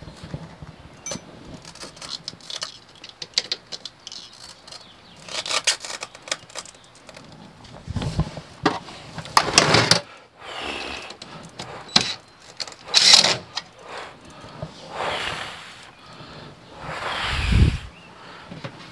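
Handling noise while a battery switch is fitted into a boat's side panel: scattered clicks and taps with several short, louder scuffing bursts.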